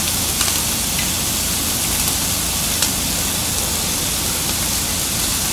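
Beef sirloin and mushrooms sizzling on a hot ridged grill plate: a steady hiss with a few faint pops.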